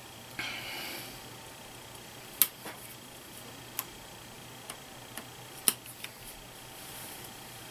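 Cable ties on a wiring harness being handled, tightened and trimmed with diagonal cutters. There is a short rustle about half a second in, then a few isolated sharp snips, the two loudest about two and a half and five and a half seconds in.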